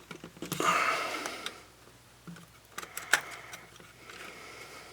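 Small clicks and handling noises of tools and parts being worked inside an opened DSLR camera body. There is a louder rustle about half a second to a second and a half in, and two sharp ticks around three seconds in.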